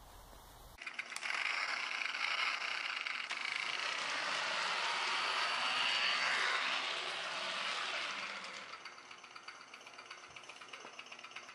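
Toy motorcycle running across a wooden floor, making a steady mechanical rattle. The rattle starts about a second in, is loudest through the middle, and thins to a fast, fine clatter near the end.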